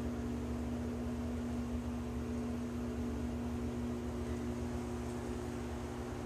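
Steady low hum with a few held tones over a faint hiss.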